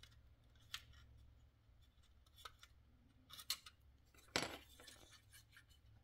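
Faint clicks and light scrapes of a metal pick and plastic parts inside an opened dryer timer, as spring-loaded contact pieces are pushed into place around the cam wheel. A handful of separate clicks, with a slightly longer rasp about four and a half seconds in.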